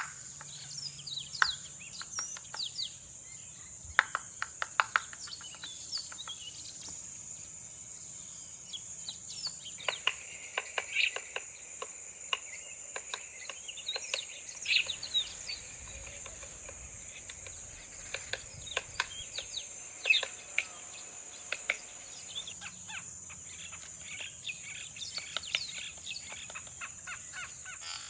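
Natural ambience: wild birds giving many short calls that sweep down in pitch, over a steady high-pitched insect drone, with scattered sharp clicks.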